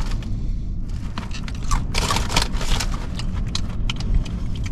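A person crunching and chewing corn chips close to the microphone: a quick run of crisp crunches. Wind rumbles on the microphone throughout.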